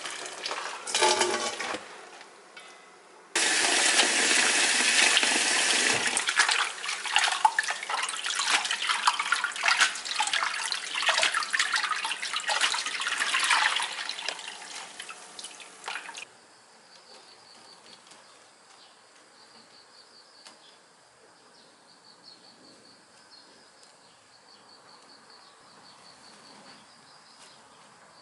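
Tap water running into a stainless steel basin and splashing as blanched pepper leaves are rinsed and wrung out by hand. The water stops about sixteen seconds in, leaving faint insect chirping.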